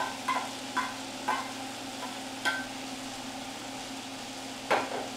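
Tomatoes and green peppers sautéing in a little oil in a pan, sizzling steadily over a low hum. A utensil stirs and scrapes the pan several times, with the loudest knock near the end.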